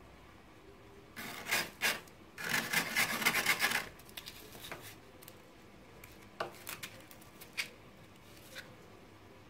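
Frost and ice being scraped off a freezer's frozen-over shelf with a hand tool: two short rasping scrapes, then a longer run of scraping about two and a half seconds in, and a few single scrapes after that.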